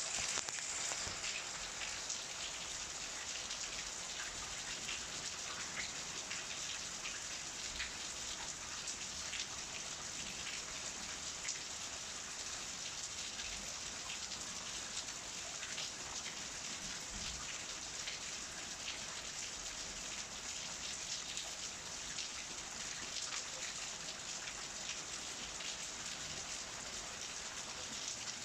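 Steady rain falling on wet paving: an even hiss dotted with the small ticks of individual drops.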